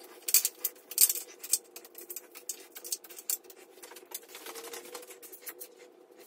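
Irregular clicks and clinks of hand tools and metal parts being handled while bolting a rally tower onto a motorcycle frame, over a faint steady hum.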